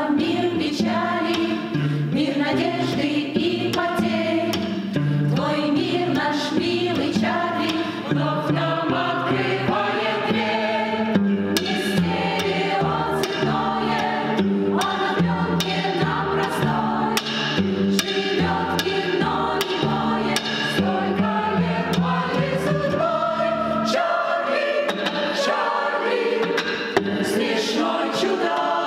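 Mixed choir singing a Russian-language song to cello accompaniment. The low bass line drops out a few seconds before the end while the voices carry on.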